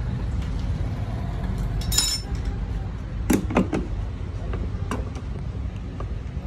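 Metal clinks and knocks as a lead-acid battery plate pack is worked into a plastic battery case with pliers: one bright clink about two seconds in, then a few short knocks a little after three seconds and another near five seconds, over a steady low rumble.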